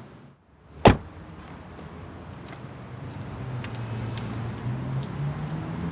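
A car door slams shut once, sharply, about a second in, then a car's engine and road noise run steadily, slowly growing louder.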